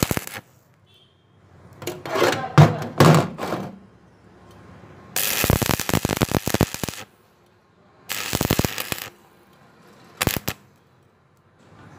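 Stick-welding arc on steel angle iron, crackling and sputtering in several separate bursts with short pauses between; the longest burst lasts about two seconds.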